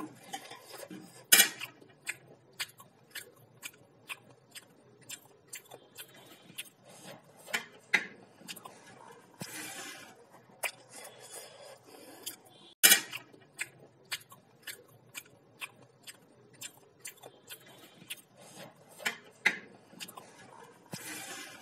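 Chopsticks clicking and scraping on a plate while picking up the last bits of food, in many light taps with two louder clacks, one about a second in and one about halfway.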